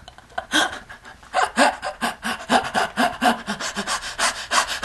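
A person laughing hard in a quick, breathy run of "ha" bursts, about four a second, that builds from about a second in.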